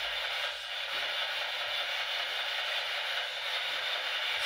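Steady hiss of radio static.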